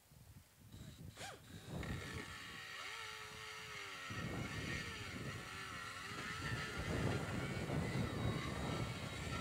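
Pneumatic die grinder with a carbide burr cutting into the cast VW transaxle bell housing, opening it out to clear a 12-volt flywheel. It comes up over the first two seconds into a steady high whine mixed with a rough grinding chatter, which wavers as the burr bites and grows louder toward the end.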